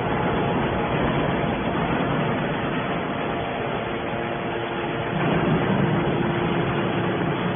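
Hydraulic scrap metal baler running: a steady mechanical noise with a faint hum, swelling slightly about five seconds in.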